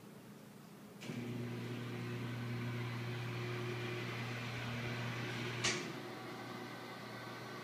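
Motor of a ceiling-mounted Auton flip-down TV lift starting about a second in and running with a steady electric hum as the ceiling panel lowers. A sharp click comes a little before the six-second mark, and the hum carries on slightly quieter after it.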